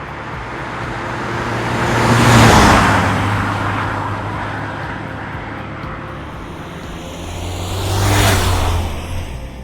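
Renault Master IV van with a 2.3 dCi four-cylinder turbodiesel driving past twice, about two and a half seconds in and again about eight seconds in. Each pass swells and fades, the engine note dropping in pitch as the van goes by.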